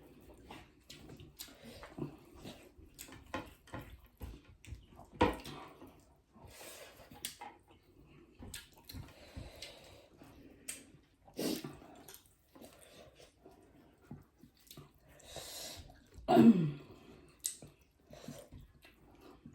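Close-up eating sounds: wet chewing, lip smacks and small clicks as dhido, rice and chicken curry are eaten, with a few louder wet smacks, the loudest near the end.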